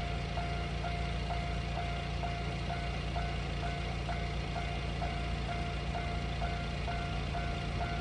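Japanese railway level-crossing warning bell ringing, a steady electronic ding repeating about twice a second, over the low steady rumble of a truck engine idling at the closed crossing.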